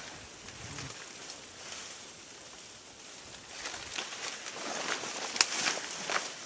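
Rustling and crackling of brush and dry leaves underfoot, with several sharp snaps and crackles in the second half.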